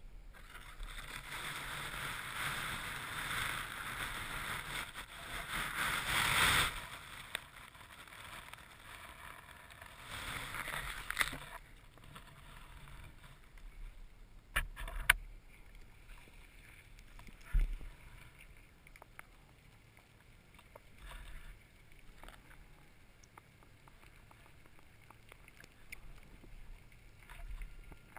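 Underwater water noise picked up by a diver's camera: a rushing hiss for the first six or so seconds that cuts off suddenly, a shorter rush around ten seconds in, then a quieter stretch with a few sharp knocks.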